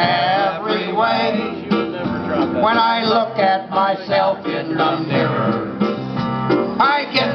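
Live band playing a country song: guitar with a male voice singing.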